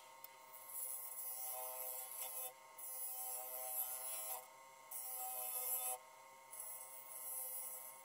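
Wood lathe running with a steady motor whine while a turning tool cuts the spinning wood, giving a hissing scrape in four passes with short breaks between them.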